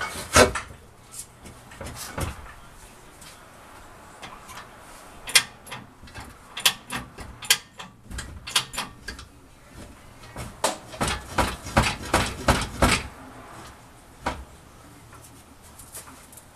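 Scattered knocks and clicks of hand work under a truck at its lowered fuel tank, with busy runs of them about five seconds in and again from about ten to thirteen seconds.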